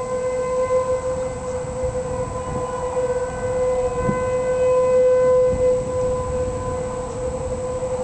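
Outdoor tornado warning siren sounding one steady held tone, swelling a little louder about five seconds in.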